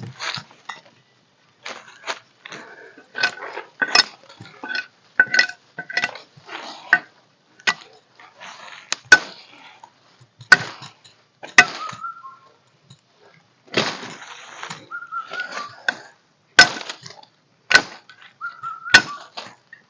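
Irregular sharp knocks and clinks of hard objects being handled, a few with a short ringing tone after them.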